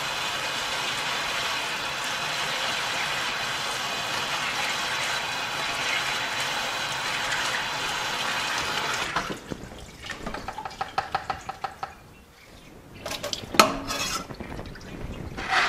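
Water running steadily from a garden hose into a plastic bucket, filling it over microgreen seeds held in a mesh bag for a rinse that clears dust from the seed. The flow stops about nine seconds in, followed by a few knocks and one louder clunk.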